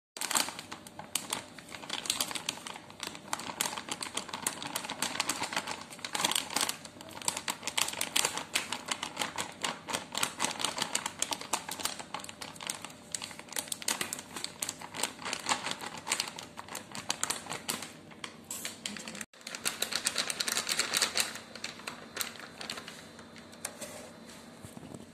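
Flour pouring into a glass mixing bowl on a kitchen scale: a dense, fast run of fine ticks and rustling that briefly cuts out about three quarters of the way through.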